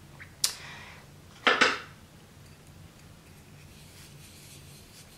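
Sharp clicks of a small plastic cosmetic jar and its lid being handled: one click, then about a second later a louder double click. A faint steady low hum underneath.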